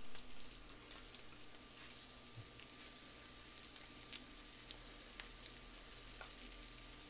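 Breaded perch roe frying in butter in a skillet: a soft, steady sizzle with scattered sharp pops.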